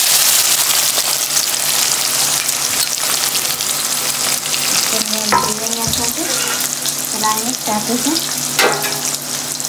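Sliced onions frying in hot oil in a kadhai: a loud, steady sizzle from the moment they hit the oil.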